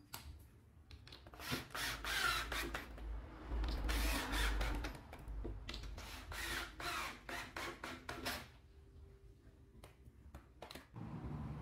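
Cordless drill driving screws through a plywood batten into a wall, running in several bursts over about seven seconds before stopping, followed by a few light knocks.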